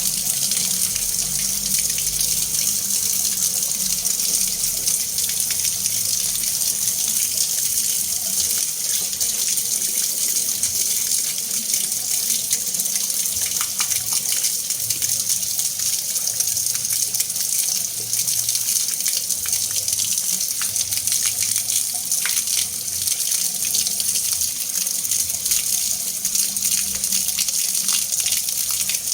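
Water being mixed and churned: a steady, even wash of water noise with many small crackling clicks and splashes through it.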